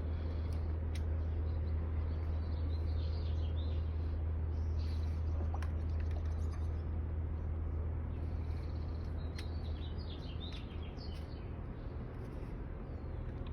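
Birds calling in the background in two spells of chirping, the first starting about three seconds in and the second near the middle, over a steady low rumble.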